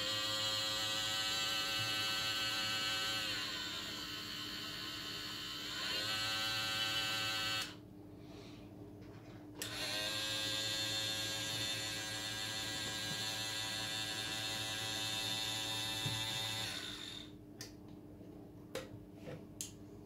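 Small electric motor of a toy washing machine turning its drum with a steady whine. The pitch sags and recovers a few seconds in, the motor stops for about two seconds and starts again, then cuts off, followed by a few light plastic clicks near the end.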